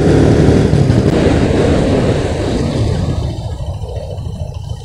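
Motorcycle engine running during a ride, with wind rushing over the microphone; the sound grows quieter about three seconds in.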